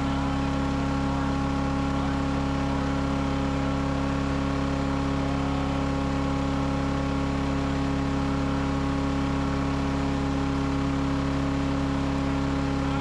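Small gas engine of an Earthquake chipper-shredder running steadily at a constant speed, a loud, even drone.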